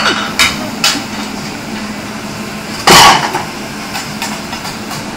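A cook's tools clanking and scraping on a large round flat-top griddle: a few sharp clanks in the first second, then one loud clang about three seconds in, over a steady hum.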